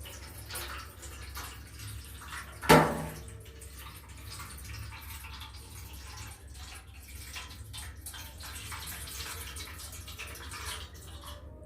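Water being poured into a cooking pot around a bowl set on a steaming stand, a continuous splashing pour that stops suddenly near the end. About three seconds in there is one sharp, loud clunk.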